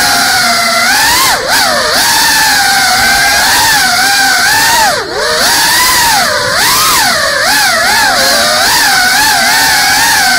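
GEPRC Cinelog 35 FPV cinewhoop's brushless motors and ducted propellers whining, the pitch constantly rising and falling as the throttle is worked. Sharp drops in pitch and level about one and a half seconds in and again about five seconds in, each snapping back up, mark moments when the throttle is chopped and punched again for flips and rolls.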